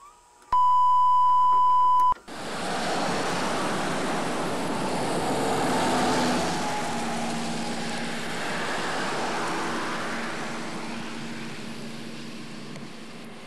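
A steady 1 kHz reference tone, the line-up tone that goes with colour bars at the head of an old videotape, sounds for about a second and a half. It cuts off, and a steady wash of noise takes over and slowly fades away.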